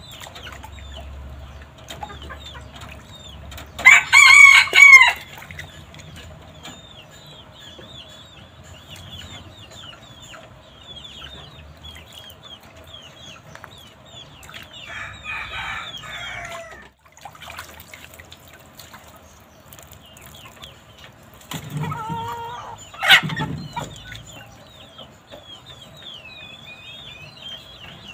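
A rooster crows twice, loudly and briefly, about four seconds in and again about three-quarters of the way through. Between the crows, water splashes in a basin as a bird is dipped and lifted out, over faint high chirping.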